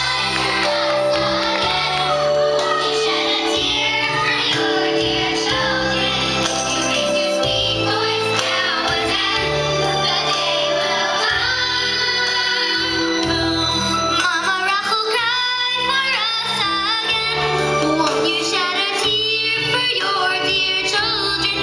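A girl singing a solo over musical accompaniment of sustained chords and bass notes that change every second or two; her voice carries vibrato in the held notes.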